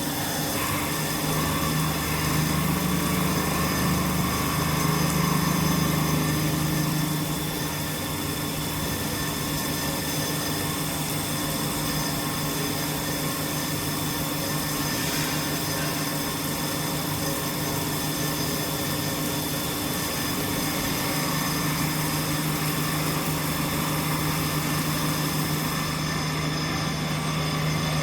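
CNC plate drilling machine milling metal: a steady whine from the spindle and drives under the sound of the cutter, a little louder for a few seconds near the start.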